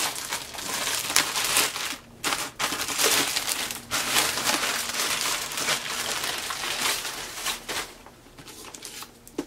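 Clear plastic bag crinkling and rustling as a toy playset is worked out of it by hand, with a brief pause about two seconds in, dying down near the end.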